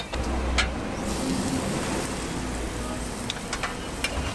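Batter hissing and sizzling on hot cast-iron bungeoppang (fish-bread) molds, with a few sharp metallic clicks from the hinged molds being handled, several near the end.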